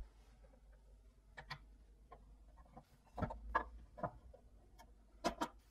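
Small steel parts of a spring scale clicking and knocking as they are handled and fitted: an end bracket being hooked onto two coiled extension springs. Scattered light clicks, with a cluster of louder knocks about three seconds in and two more near the end.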